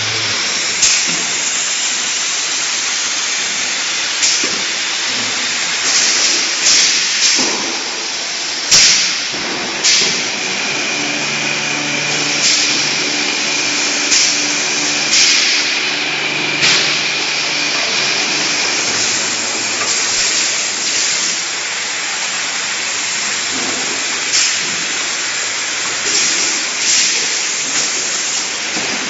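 Automatic edible oil filling and capping line running: a steady machine hiss broken every second or few by short, sharp hisses of compressed air from the pneumatic filling and capping heads. A low motor hum with a faint high whine comes in for several seconds midway.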